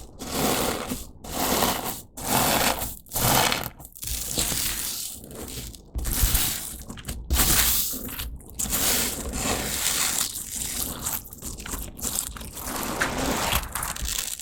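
Slime being squished and kneaded by hand, a run of wet, crackly presses about once a second at first, then more irregular.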